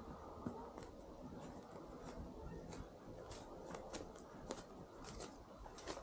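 Faint, irregular crackling and rustling of footsteps on dry fallen leaves and grass, over a low steady rumble.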